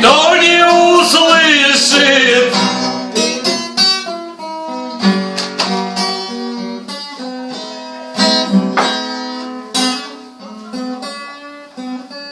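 Acoustic guitar playing out the end of a song. A last held, wavering sung note carries through the first couple of seconds, then strummed and plucked guitar chords continue and grow quieter toward the end.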